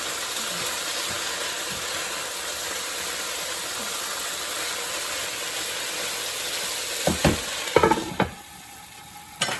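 Chicken and vegetable stir fry sizzling steadily in a hot pan. A few sharp knocks of a utensil against the pan come near the end, and the sizzle drops away about eight seconds in.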